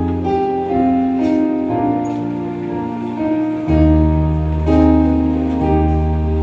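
Keyboard playing a slow instrumental interlude of held chords over a sustained bass line, with a deeper bass note coming in a little past halfway.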